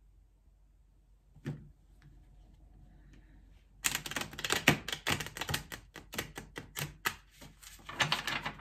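A Thoth tarot deck being riffle-shuffled on a wooden tabletop. There is a single knock about a second and a half in, and then, from about four seconds in, a fast run of card flutters and clicks.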